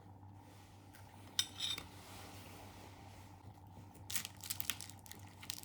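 Kitchenware clinking: one sharp clink with a short ring about a second and a half in, then a quick run of small clicks and clatter near the end, over a low steady hum.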